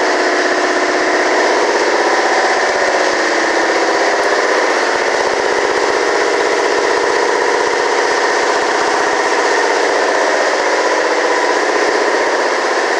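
A machine running steadily with a loud, even drone, with no break or change in pitch.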